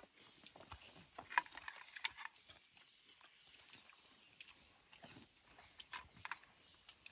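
Faint, scattered clicks and smacks of people eating rice off banana leaves by hand and with a spoon.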